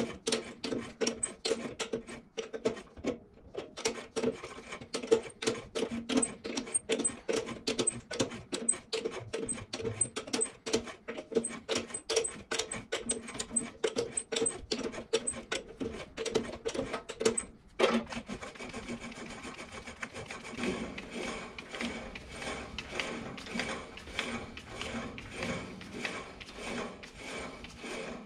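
Tap cutting an M12 internal thread in a metal part held in a lathe chuck, a quick run of clicks several times a second as the tap turns. About two-thirds of the way through the clicking gives way to a steadier, continuous sound.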